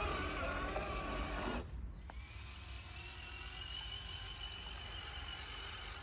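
Radio-controlled scale crawler truck's electric motor and gearbox whining, the pitch wavering with the throttle, then cutting off abruptly about a second and a half in; afterwards a quieter, thin steady whine that rises slowly.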